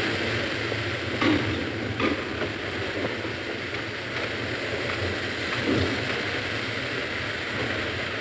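Steady rushing hiss of a steam locomotive shed, with a few short metallic knocks.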